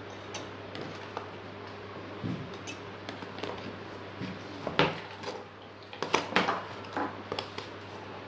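Metal spoon scraping and clinking against a stainless steel tumbler and a plastic box while scooping and tipping marble powder, a series of light irregular clinks and knocks. The loudest knock is about five seconds in, with a few more close together around six seconds.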